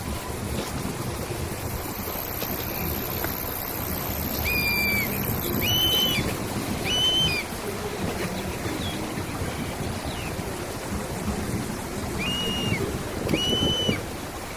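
A bird repeats a short, arched whistled call five times, in two groups, over a steady rushing background of natural noise. A thin, very high steady tone sounds for a few seconds in the first half.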